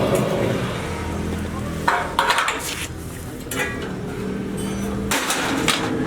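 A few sharp metal clinks and knocks, like steel parts or hand tools being handled, over a steady low hum.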